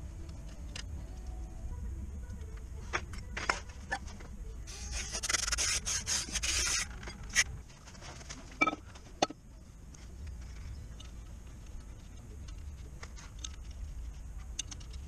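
Scattered clicks and clinks of hand tools and metal parts being handled, with a rushing hiss lasting about two seconds near the middle and a steady low rumble underneath.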